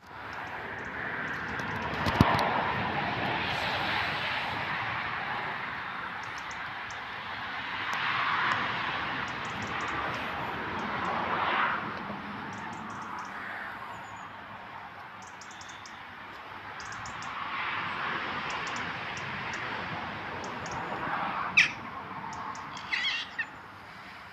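Outdoor traffic-like noise: a steady rush of passing vehicles that swells and fades several times. There is a knock about two seconds in and a couple of short, sharp high squeaks near the end.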